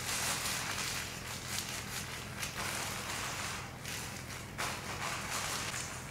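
Crinkling, crackly rustle of a gold-foil hair mask cap being massaged by hand on the head, rising and falling as the fingers work the foil.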